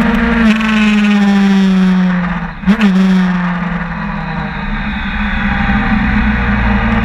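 Sportbike engine at speed on track, its pitch falling steadily as the revs drop, with a brief cut and a quick rev blip about two and a half seconds in, then running at lower, steady revs through the corner. Wind rushes over the microphone throughout.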